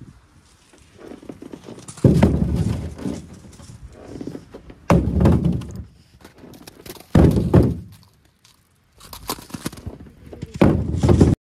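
Snow being shovelled: four loud, heavy crunching thumps of a shovel biting into packed snow and throwing it, one every two to three seconds. The sound cuts off abruptly near the end.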